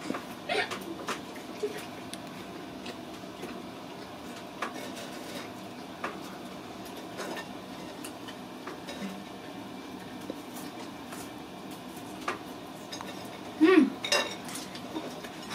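Scattered light clicks and clinks of plates and cutlery as people eat at a table, over a steady low room hum, with a brief louder sound near the end.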